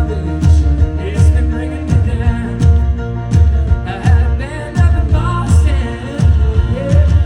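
A live band playing a song with singing over a steady drum beat, the kick drum landing about every three quarters of a second.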